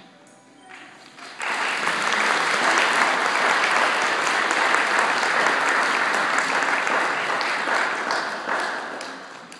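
Audience applauding, starting about a second and a half in and tapering off near the end.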